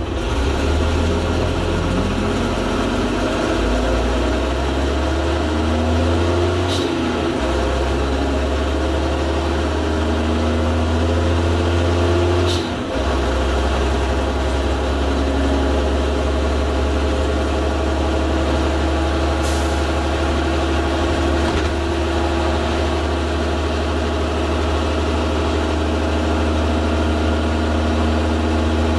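Leyland Olympian double-decker bus under way: its diesel engine runs steadily under a gearbox whine that rises in pitch over the first few seconds, then holds steady. Three short sharp hisses, spaced several seconds apart, are the air-operated gearbox 'sneezing' at gear changes, and the engine note dips briefly at one of them.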